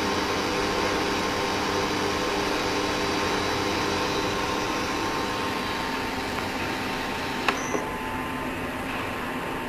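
Water heating in a stainless steel pot on an induction cooktop, with small bubbles forming before the boil: a steady hiss over a steady hum from the hob. Two short clicks about three quarters of the way through.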